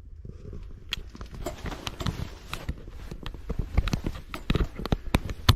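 A rapid, irregular run of knocks and clicks with a scuffing noise between them, the sharpest knock near the end.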